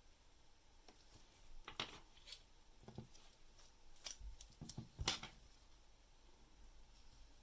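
Faint, small metallic clicks and scrapes of watchmaking tools working a mainspring barrel and its arbor, a handful of sharp ticks with the loudest about five seconds in.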